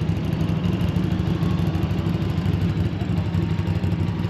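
Off-road vehicle engine idling steadily with a low, even rumble.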